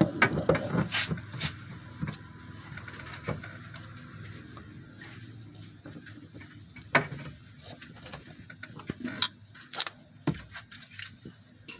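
Irregular clicks, scrapes and knocks of pliers working a plastic radiator drain plug loose, most frequent in the first second or two and again near the end.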